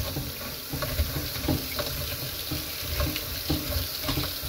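Tap water running onto raw cut potato fries in a stainless-steel mesh strainer in a sink, rinsing the starch off them. A hand tosses the fries under the stream, making irregular light knocks.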